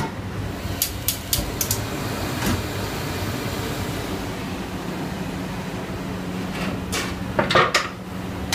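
Large commercial LPG gas burner running with a steady hiss and hum under a big aluminium cooking pot. A few sharp metallic clicks and knocks of cookware come about a second in and again near the end.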